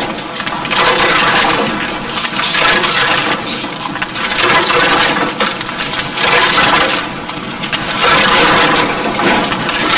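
A tree-cutting machine working through wood, a loud grinding and crunching noise that surges in waves about every one and a half to two seconds.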